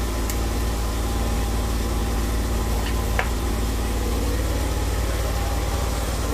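Honda 2800 portable generator's engine running steadily with an even drone.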